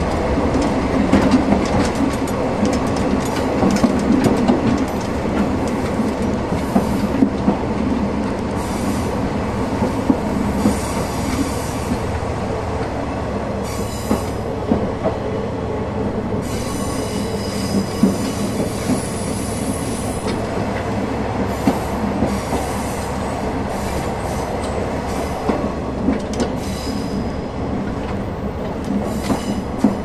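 A KiHa 120 diesel railcar's running noise, heard at the gangway between coupled cars: a steady rumble of wheels on rail with sharp clicks and knocks. Several spells of high wheel squeal come and go, and the longest lasts a few seconds just past the middle.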